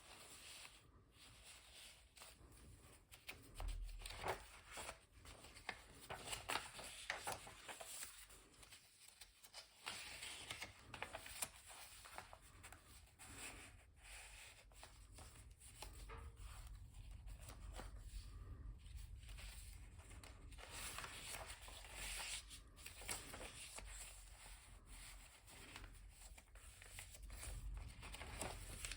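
Faint, irregular rustling and crinkling of paper pages in a handmade soft-spine junk journal as they are handled and turned, with soft ticks and taps on and off.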